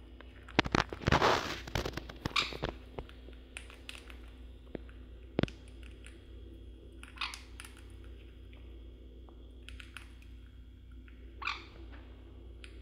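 Sun conure eating: scattered sharp clicks and cracks of its beak working on food, with a louder crunching burst about a second in and a few short scratchy sounds later.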